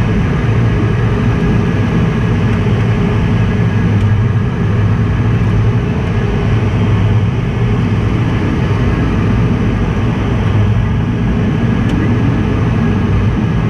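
Steady engine and airflow noise inside an aircraft cockpit, a low hum that holds even throughout, as the aircraft flies low over the runway on a go-around.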